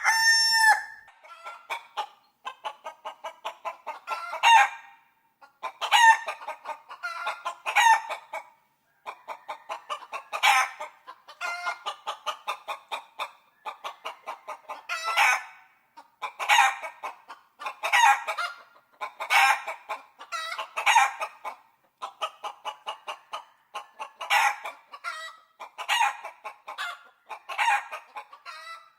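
Chicken clucking in runs of quick short clucks, each run climbing to a louder squawk. The runs repeat every second or two, with a crow trailing off right at the start.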